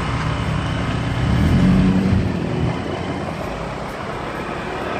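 Motorcycle engine running with road and traffic noise, heard from the pillion seat while riding. About a second and a half in, the engine note swells, rising and then falling in pitch, before settling back to a steady run.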